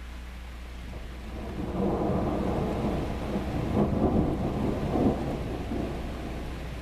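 Thunder rolling: a low rumble builds about a second in, swells with a few sharper peaks in the middle, and fades toward the end.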